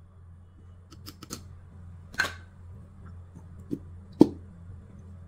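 Scattered light clicks and knocks of a screwdriver and a small power-supply circuit board being handled, the sharpest about four seconds in, over a steady low hum.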